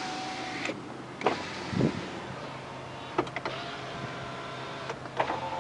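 Electric window motors of a 2006 Renault Kangoo running as the side windows are powered down and up. There are several short runs, each ending in a click or knock as the glass stops, and another run starts near the end.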